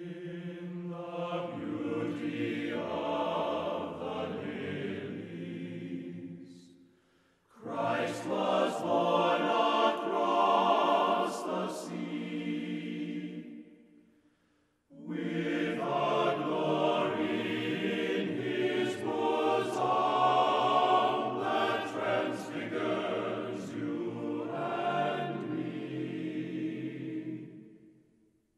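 Choral music: a choir singing slow, sustained phrases in three long stretches, each fading away into a brief pause.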